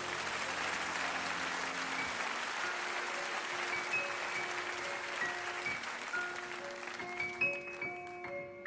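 Audience applauding over slow background music of sparse, held notes; the applause dies away near the end.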